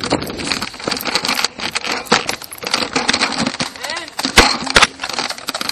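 Distant voices shouting over steady crackling and clicking handling noise, with two sharp knocks close together about four and a half seconds in.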